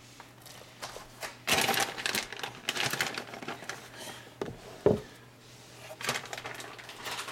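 Scattered clicks, rustles and light knocks of kitchen handling, with one sharper knock about five seconds in, over a faint steady low hum.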